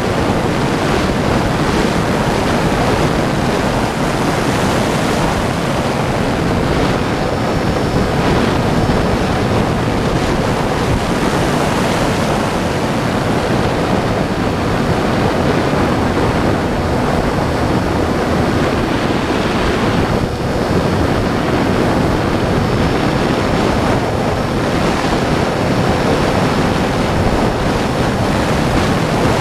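Wind rushing over the microphone of a camera mounted on a foam RC plane in flight: a loud, steady roar of air noise. A faint high whine from the plane's motor comes and goes.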